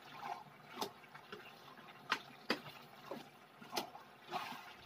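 Metal ladle clinking and scraping against a metal cooking pot while chicken curry with greens is stirred: several sharp clinks at uneven gaps with softer scrapes between.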